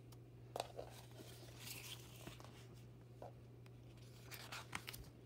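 Paper pages of a picture book being turned by hand: faint rustling of paper with a few light taps and clicks, over a steady low hum.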